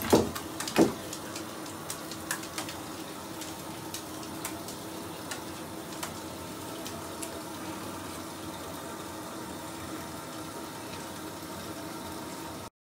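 Bath bomb fizzing in a tub of water: a steady crackling hiss dotted with small pops, over a faint steady hum. Two sharp impacts in the first second are the loudest sounds.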